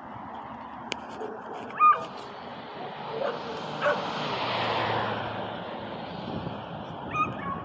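A dog gives a few short whimpering yips, about two seconds in, near four seconds and near the end, while a passing vehicle rises and fades in the middle.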